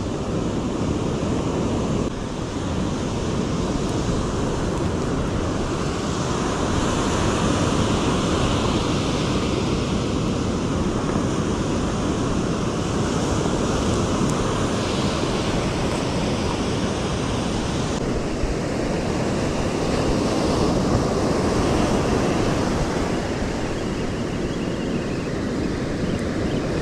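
Surf breaking and washing up a sandy beach: a steady noise of waves, with wind mixed in.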